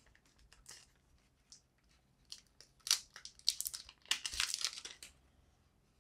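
Thin clear plastic film being peeled off an Echo Buds charging case, crinkling in irregular bursts from about two seconds in to about five seconds in, after a few faint clicks.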